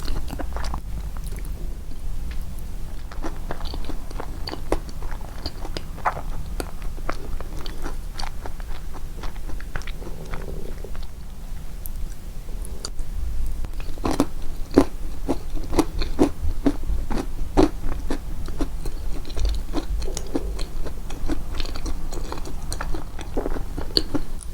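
Close-miked chewing and biting of a walnut and banana yogurt cake: a steady run of short, moist clicks, thickest a little past halfway.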